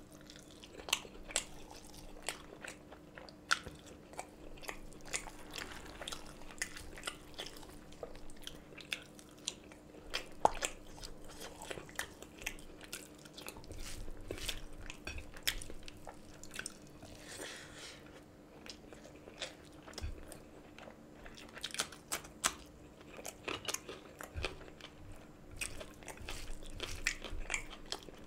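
Close-miked chewing and biting of a man eating rice and roast chicken curry with his hand: many short wet smacks and sharp clicks from mouth and fingers, scattered unevenly.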